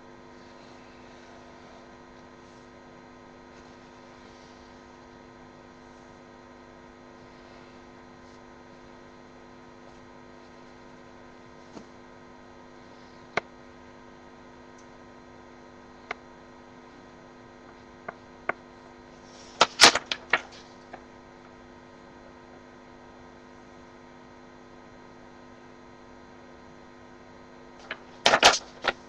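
A steady electrical mains hum, with a handful of sharp taps and knocks on the desk from the middle on and a louder cluster of knocks about two-thirds through. Near the end comes a short burst of paper handling as the drawing is lifted.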